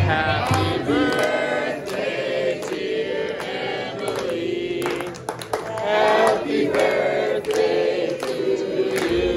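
A group of people singing a birthday song together, with hand clapping along.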